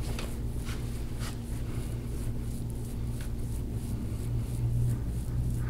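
A steady low hum, with a few faint, soft rubbing swishes of a forearm sliding over an oiled back during deep-tissue massage.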